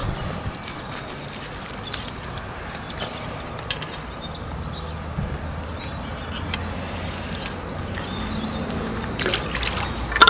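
Faint water dripping and trickling from a landing net holding a just-caught trout while it is unhooked, with a few light clicks of handling.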